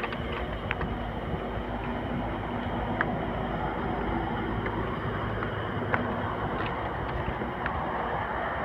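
Steady hum and rush of road traffic from a nearby highway, with a few faint clicks.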